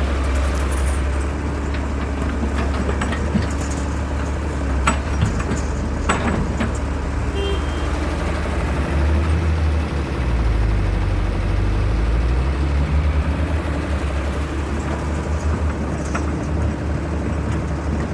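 Heavy excavator's engine running steadily with a low rumble, with a few sharp knocks and clanks between about three and six and a half seconds in.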